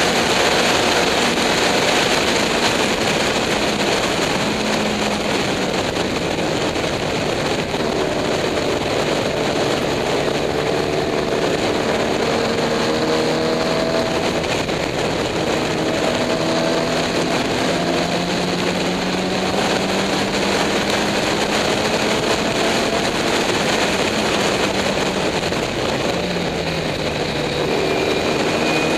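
Onboard sound of a small-displacement race car's engine at full throttle, its pitch climbing slowly as the car gains speed along a straight, under heavy wind and road noise. About two to three seconds before the end the pitch drops as the car slows for a corner.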